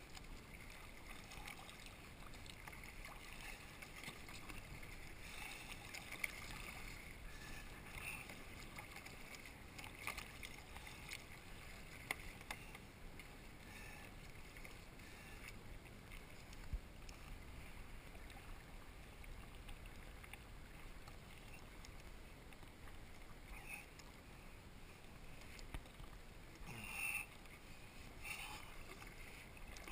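Kayak being paddled through shallow sea water: faint splashes of the paddle blades dipping, about one stroke every two seconds, over the steady wash of water along the hull, with a few sharp clicks.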